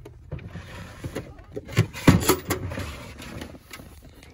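A portable chest fridge being pulled out on its slide-out tray from under a wooden cabinet: a sliding rumble with a few sharp knocks, the loudest about two seconds in.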